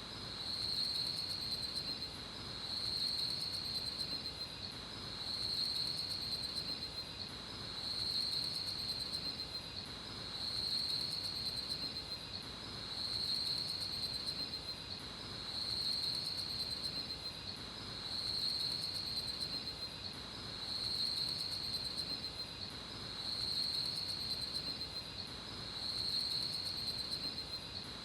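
Night-time insect chorus: a steady high-pitched trill that swells and fades about every two and a half seconds.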